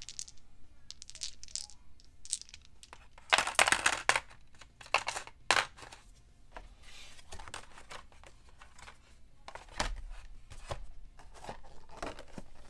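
Small plastic game dice and a black plastic insert tray being handled: a quick run of clicks and rattles about three seconds in, then scattered single clicks and knocks.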